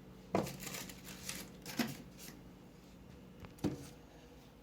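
Paper and plastic packaging rustling as it is handled, with a sharp knock about a third of a second in and another near the end.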